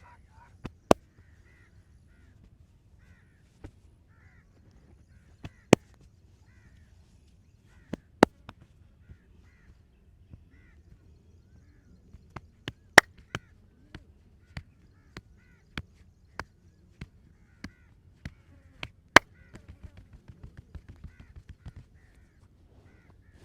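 Sharp slaps and cracks of a hand massage: a few loud single strikes, then in the second half a run of lighter strikes nearly two a second. Crows cawing faintly in the background.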